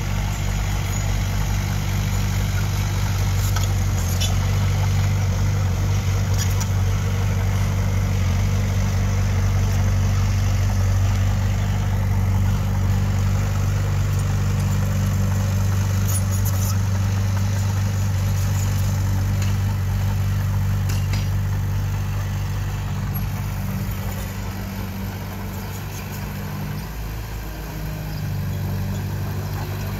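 Diesel engine of heavy earthmoving machinery running steadily at a low, even pitch, easing off about three quarters of the way through and picking up again near the end, with a few light clicks.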